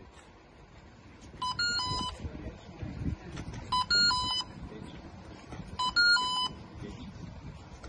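Electronic beeping: a short phrase of quick high beeps, repeated three times about two seconds apart, like a phone ringtone or alert.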